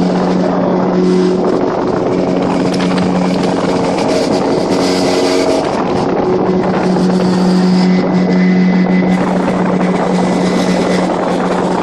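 Outboard motor of a fishing boat running steadily under way, with wind noise on the microphone. The engine note shifts slightly about six seconds in.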